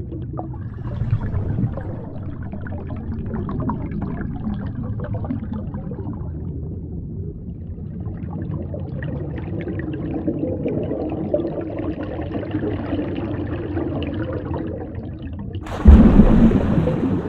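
Underwater ambience: a muffled low rumble with steady bubbling and gurgling. Near the end a sudden loud rush of noise lasts about a second and a half.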